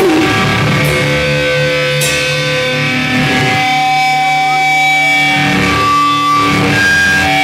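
A rock band playing loud in a small room: distorted electric guitar chords ringing and sliding in pitch over drums with cymbal hits.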